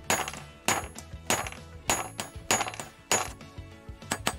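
Hammer striking a steel pipe wrench: sharp, ringing metallic blows about once every 0.6 seconds, changing to quicker, lighter taps near the end.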